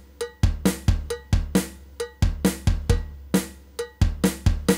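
Music with a drum beat: quick, punchy drum hits over a steady low bass line.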